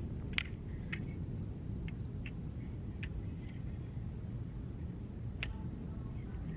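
Sectioned metal tarp pole clinking as its sections are handled and fitted together: several sharp clinks, the loudest about half a second in with a brief ring and another near the end, over a steady low rumble.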